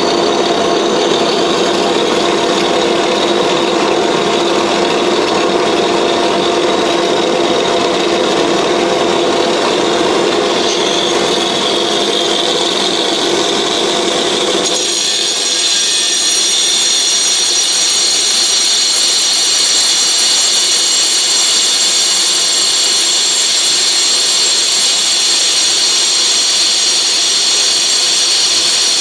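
Angle grinder running steadily as it hollows out a 16-inch mirror blank. About halfway through the sound changes suddenly: the lower tones drop away and a higher whine takes over.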